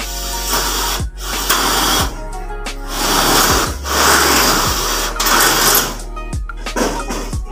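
Cordless electric drill running in several short bursts of about a second each, drilling into the fascia cover, over background music with a steady beat.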